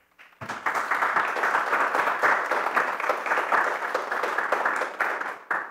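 Audience applauding, starting about half a second in and fading near the end.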